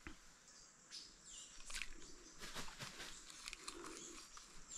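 Faint forest ambience: a few short bird chirps over a steady high insect whine, with scattered small clicks and rustles.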